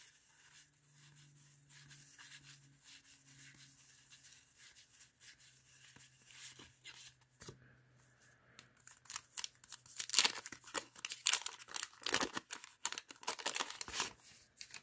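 A card pack's wax-paper wrapper being torn open and crinkled: a quick, dense run of crackling for the last five seconds or so. Before it there are only faint handling noises over a low hum.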